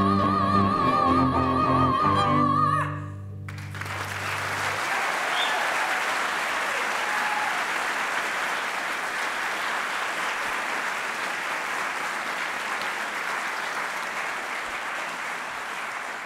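A female singer holds a final high note with wide vibrato over sustained piano, violin and cello chords; the music stops about three seconds in. An audience then applauds steadily to the end, fading a little near the close.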